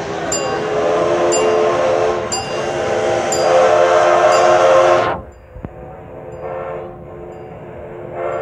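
Steam whistle of the narrow-gauge locomotive D&RGW No. 340, sounding several tones at once in a long blast that cuts off sharply about five seconds in. A short, fainter toot follows, and another blast starts near the end. A bell rings faintly about once a second throughout.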